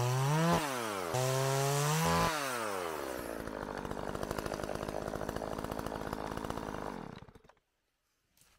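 Two-stroke chainsaw running at high revs, the engine pitch rising and falling twice. About two seconds in it drops to idle, and it idles with an even, rapid firing beat before being switched off about seven seconds in.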